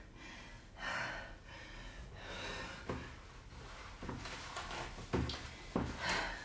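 A woman retching over a toilet bowl: harsh gasping breaths, broken by several sudden heaves in the second half.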